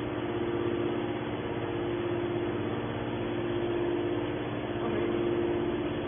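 Hydraulic power unit of an HBM200 scrap-metal baler running with a steady hum while its cylinder moves the lid.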